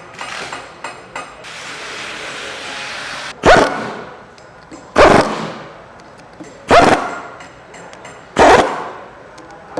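Air impact wrench running down the Allen bolts of a pump coupling housing in four short, loud bursts about a second and a half apart, after a steady hiss of about two seconds.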